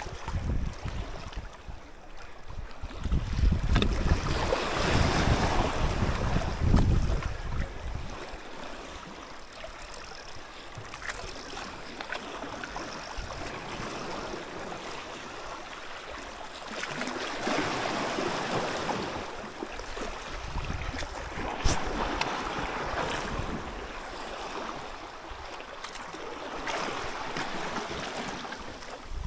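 Sea waves washing and surging in swells every few seconds, with wind buffeting the microphone as a heavy low rumble in the first third. A few sharp clicks are heard, the loudest a little past the middle.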